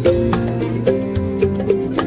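Background music with a steady beat: a melody of pitched notes over a bass line.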